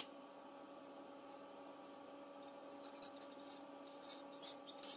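Faint scratching of a felt-tip marker colouring in small boxes on a paper tracker card, a cluster of quick strokes in the second half, over a steady electrical hum. A single sharp click right at the start.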